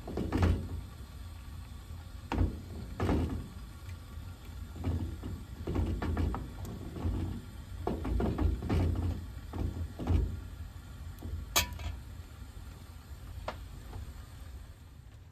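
Metal ladle stirring in a metal pot on a wood-burning kitchen range, with irregular dull knocks and scrapes against the pot, and one sharp metallic clink about two-thirds of the way through.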